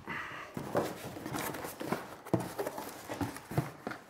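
Irregular knocks and thumps, about six, with some rustling, as unpacked items are set aside and a cardboard box is opened and its plastic packing handled.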